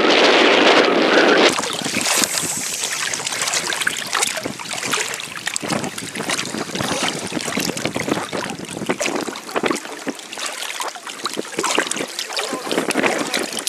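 Strong wind buffeting the microphone for about the first second and a half, then choppy water lapping and splashing against an inflatable belly boat in many small irregular splashes.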